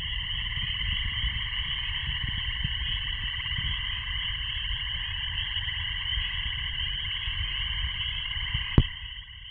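A dense chorus of many frogs singing in a frenzy, their calls overlapping into a steady, pulsing din, over a low rumble. One sharp click stands out near the end.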